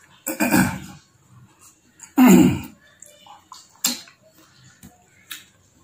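Close-up eating mouth noises: two loud slurps as curd is licked off the fingers, about half a second and two seconds in, followed by a few short lip smacks.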